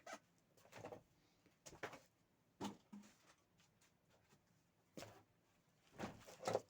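Near silence broken by a few faint, scattered clicks and knocks of small objects being handled, with a short cluster of them near the end.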